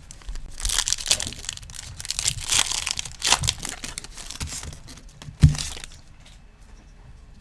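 A foil trading-card pack being torn open, its wrapper crackling and crinkling for about three seconds, followed by a single low thump.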